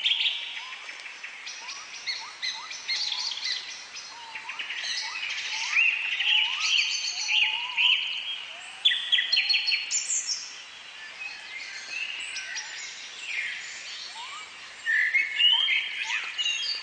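Several birds calling at once: many quick chirps and whistles, with a short rising note repeated again and again beneath them.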